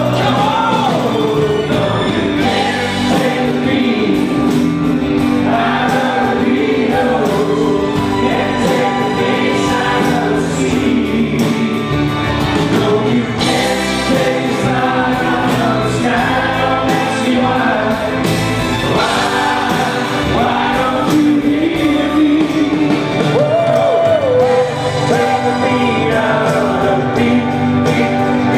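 Live pop-rock band playing: a male lead singer over bass guitar, drums and keyboards, at a steady full volume throughout.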